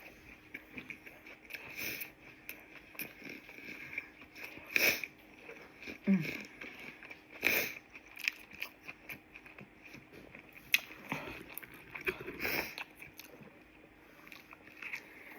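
Close-miked chewing and crunching of a person eating a turkey sandwich and chips: a run of irregular crisp crunches and mouth sounds, with a handful of louder bites spread through.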